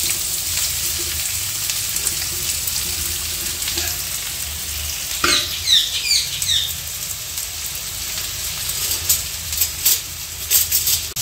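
Chopped onions sizzling steadily in hot oil in a nonstick kadhai, just added for frying until transparent. A few short chirping sweeps come about five seconds in, and a cluster of sharp clicks near the end.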